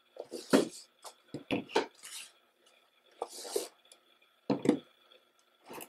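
Two cardboard album boxes handled and turned over in the hands: an irregular series of soft knocks and taps with brief brushing scrapes of the boxes.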